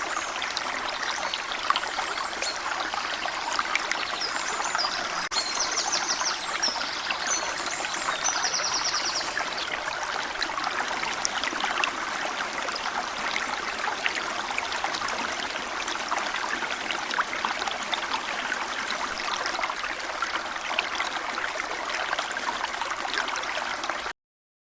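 A shallow stream running over stones, a steady trickling and babbling, with small birds chirping and trilling high above it in the first ten seconds or so. The sound cuts off suddenly near the end.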